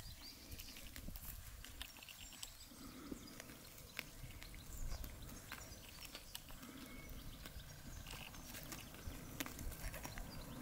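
Sheep grazing at close range: irregular crisp clicks and rips of grass being torn off and chewed, over a low rumble.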